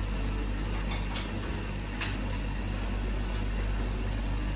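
Steady low mechanical hum of kitchen background noise, with two faint clicks about one and two seconds in.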